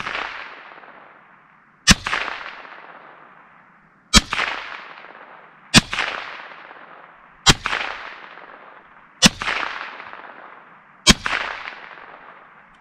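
Ruger 10/22 takedown semi-automatic rifle firing CCI Mini-Mag .22 Long Rifle hollow points: six shots roughly two seconds apart, each followed by a long fading echo.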